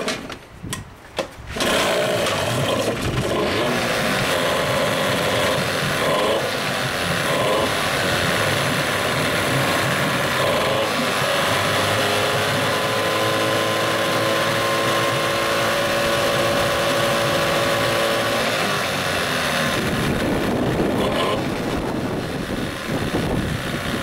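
Choked Johnson 15 hp two-stroke outboard started by hand. It catches after a couple of short pulls about a second and a half in, then runs steadily with its propeller churning the water of the test tank.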